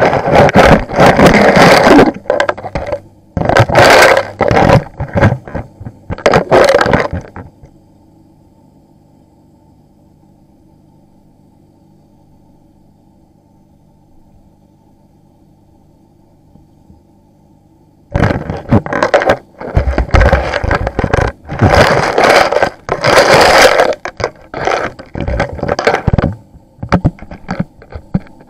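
Loud bursts of scraping and crackling, in two long stretches with a quiet gap of about ten seconds between them, over a steady low hum that runs beneath throughout.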